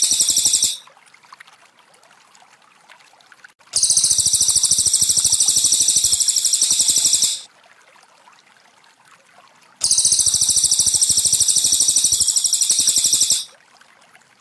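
Cililin song: a high-pitched, very rapid trill of repeated notes, given in bursts of about three and a half seconds, the first ending under a second in and two more following after pauses of two to three seconds. A faint trickle of water runs beneath it.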